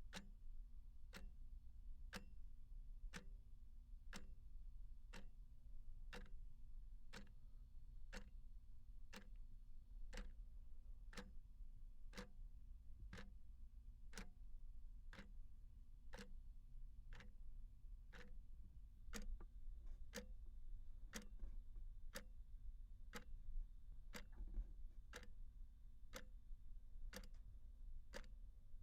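Clock ticking steadily, about one tick a second, faint.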